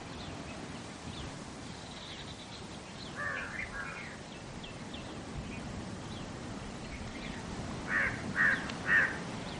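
Crows cawing: a short run of caws about three seconds in and three louder caws half a second apart near the end, with faint bird chirps over a steady background hiss.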